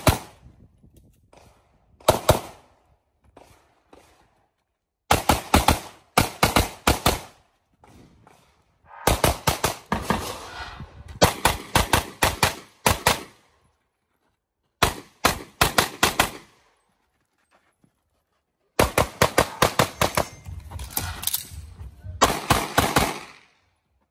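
Handgun fired in rapid strings, several sharp shots a second, in bursts with short pauses between them.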